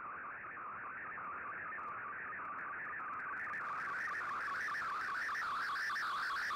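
Shortwave Radiogram's MFSK colour-picture transmission heard through an Icom IC-R8600 shortwave receiver: a continuous electronic tone warbling rapidly up and down as it carries image data, over faint band hiss. It grows louder and brighter about halfway through.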